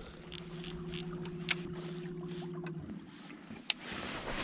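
Baitcasting reel whirring steadily for about three seconds as the line pays out or is reeled in, then stopping abruptly, with a few light clicks of the reel and rod handling.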